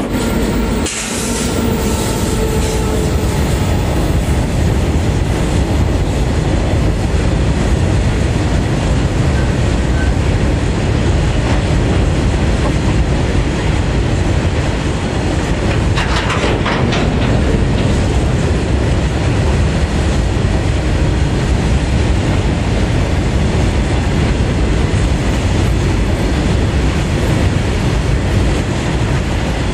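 Long Indian Railways BOXN freight train, hauled by twin WAG9H electric locomotives, rolling steadily past with a continuous rumble and clatter of steel wheels over the rails, and a few sharp clanks about halfway through.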